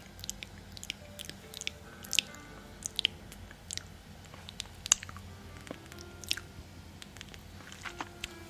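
Close-up crunching and chewing of crisp food: irregular sharp crunches, a few a second, with the loudest about five seconds in. Faint music plays underneath.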